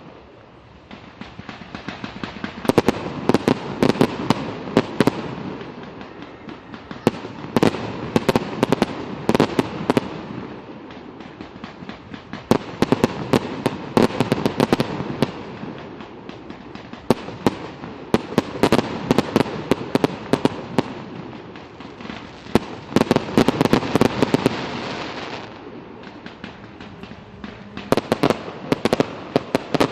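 Fireworks display: a dense run of sharp bangs from bursting shells, over a continuous rumble that swells and eases back several times.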